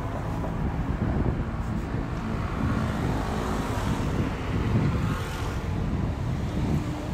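City street traffic: cars running and passing, with one passing close about four to five seconds in, and a low rumble of wind on the microphone.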